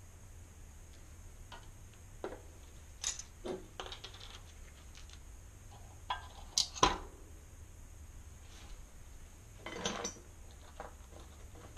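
Scattered light clicks and clinks of small metal parts from a bicycle engine kit and an oil bottle being handled and set down on a wooden table, with a sharper knock about seven seconds in.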